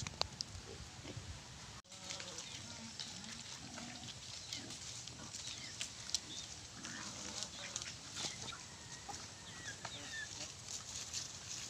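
Quiet farmyard with goats, chickens and ducks feeding: scattered light clicks of pecking and chewing, with a few brief faint animal calls now and then.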